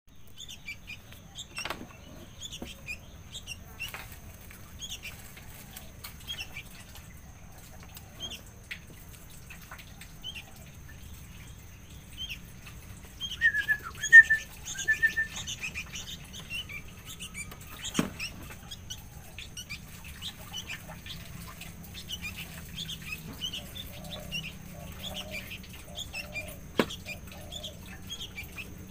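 Sooty-headed bulbuls (kutilang) chirping: a steady run of short, high calls, with a louder flurry of chirps about halfway through. Three sharp knocks are spread across it.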